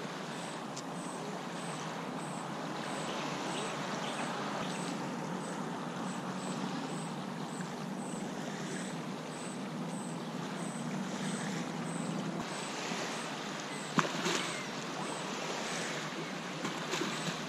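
Small waves lapping on a sandy lakeshore, with the steady low hum of a distant engine that stops about twelve seconds in. A single sharp click comes near the end.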